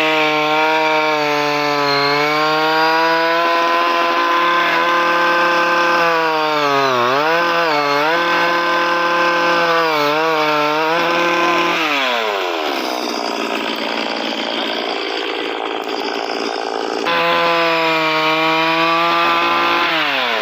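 A chainsaw-type tree-cutting machine's small engine running at high speed with a steady whine. Its pitch sags and recovers twice near the middle, drops off about twelve seconds in to a rougher, noisier sound, climbs back to a steady whine a few seconds later, and falls away again at the very end.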